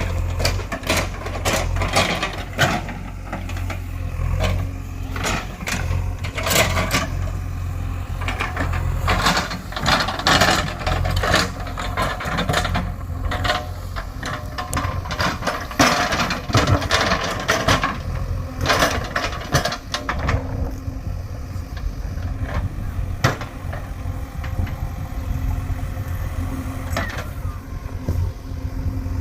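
JCB 3DX backhoe loader's diesel engine running steadily under work, with frequent sharp knocks and rattles from the machine throughout, fewer after about twenty seconds.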